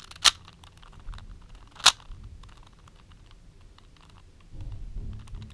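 Plastic Rubik's Cube layers being turned: a run of small clicks, with two sharp, louder clacks about a second and a half apart near the start, and a low rumble near the end.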